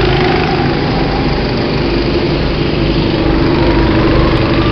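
Small go-kart engines running steadily on the track, a steady engine note with a slight wander in pitch.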